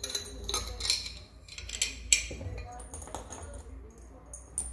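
Metal tools and parts clinking and clattering: a series of sharp metallic clinks with a short ring, the sharpest about two seconds in, over a steady low hum.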